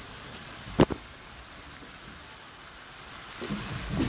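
Salmon heads sautéing in a pot with onion, garlic and ginger: a steady sizzling hiss, with one sharp knock a little under a second in.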